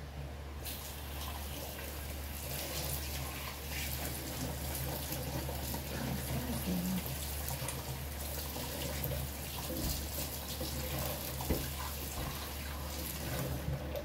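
Running water, a steady hiss that starts about half a second in and stops near the end, over a low steady hum.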